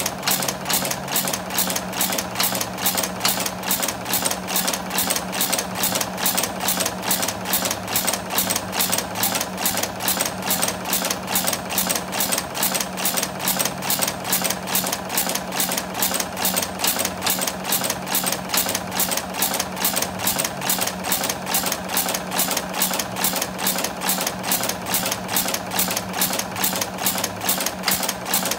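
FU-10 tubular rivet header running steadily, its heading ram striking at an even rate of about three to four strokes a second over a steady machine hum.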